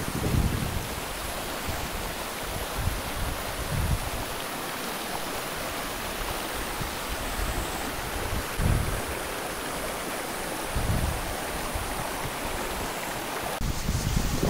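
Shallow mountain stream rushing over rocks: a steady hiss of running water, with a few short low rumbles of wind on the microphone. Near the end the wind on the microphone grows stronger.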